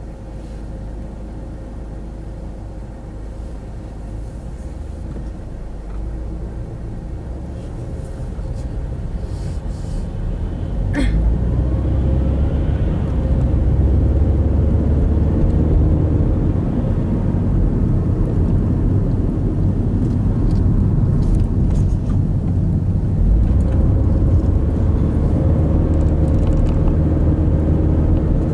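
Car's engine and road noise heard from inside the cabin: a steady low rumble that grows noticeably louder about a third of the way through and then holds.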